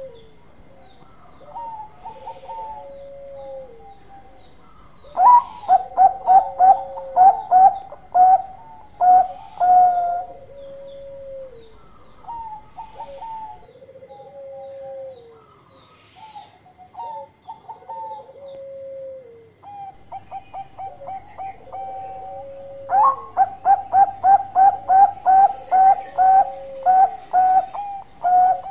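Zebra dove (perkutut) song: two long runs of rapid, clipped coos at about two to three notes a second, one starting about five seconds in and one near the end, with slower, drawn-out coos that fall in pitch in between.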